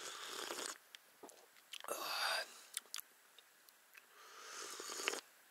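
A person sipping and slurping hot cappuccino from a cup: three breathy, noisy slurps a second or two apart.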